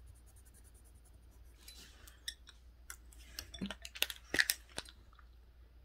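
Colored pencils clicking and scratching on paper: a run of short, faint clicks and scratchy strokes starting after a quiet first second or two, loudest about four seconds in.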